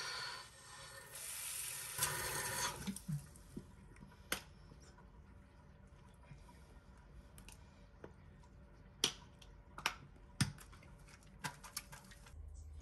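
Water running from a tap in the first few seconds, then stopping, followed by a series of sharp, light knocks spread out over the rest.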